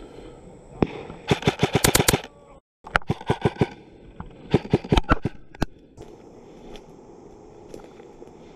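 Airsoft rifle firing close by in rapid bursts, about ten shots a second, with short pauses between bursts. The shooting stops about six seconds in.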